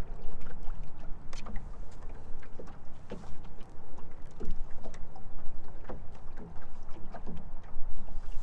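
Water lapping and slapping against the hull of a small fishing boat in a string of irregular little knocks and splashes, over a steady low rumble.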